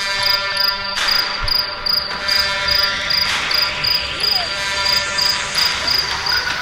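Background music: sustained chords under a quick, regular high-pitched ticking beat.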